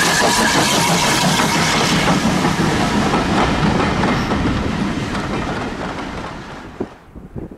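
Heritage steam train running past, its carriage wheels clattering over the rail joints. The sound fades steadily as the train draws away and drops off sharply near the end.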